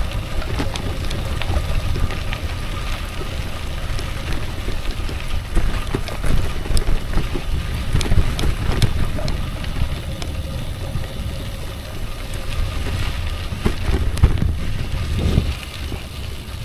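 Wind buffeting the microphone over a steady rumble, with scattered clicks.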